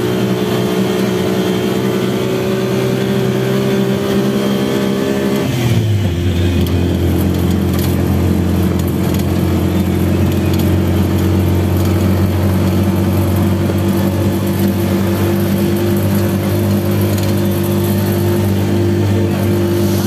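An engine running steadily. Its pitch drops about six seconds in, then holds steady.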